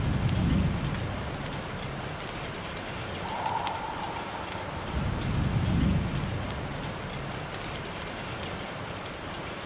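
Steady rain with scattered sharp drop ticks, and low rumbles of thunder swelling up twice, at the start and about five seconds in.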